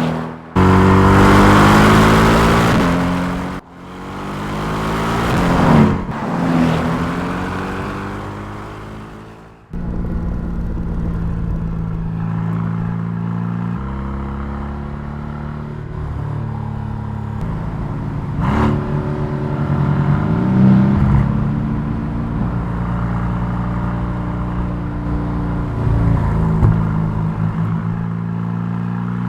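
Mercedes-AMG GT R's twin-turbo V8 driven hard. In the first ten seconds several short cuts of the engine revving up and falling away; after that a long stretch of loud, steady running with a few sudden shifts and rises in pitch.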